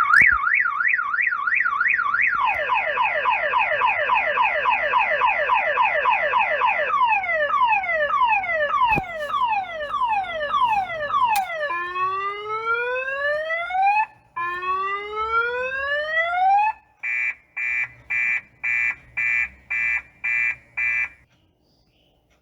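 Electronic car alarm siren cycling through its tones. First a fast warble up and down, then rapid falling sweeps that slow down, then two long rising whoops, then about eight short beeps at roughly two a second before it stops.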